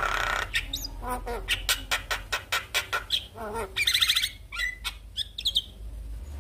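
Javan myna singing a varied, chattering song: a run of rapid sharp clicks, a buzzy trill about four seconds in, and short whistled notes gliding up and down.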